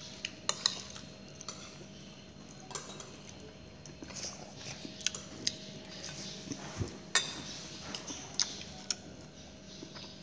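Spoon clinking and scraping against a ceramic plate while eating rice and soup: scattered light clinks, roughly one every second, over a faint steady hum.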